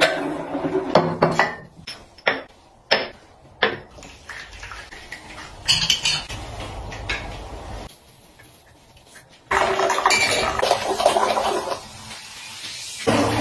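Glass, ceramic and metal items are set down around a bathtub: a run of sharp clinks and knocks, including a plate placed on a metal wire bath caddy. About two-thirds of the way through, liquid is poured into a glass for a couple of seconds.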